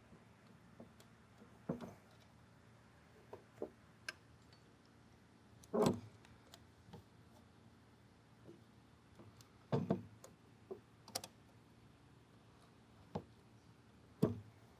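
Scattered metal clicks and knocks of parts and hand tools being handled while reassembling the arm bearing assembly on a canning-line seamer. There are about ten, irregularly spaced, the loudest about six seconds in.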